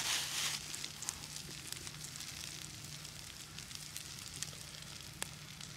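Wood fire burning in a stove, a soft hiss that drops away about half a second in, with scattered sharp crackling pops, the sharpest one near the end.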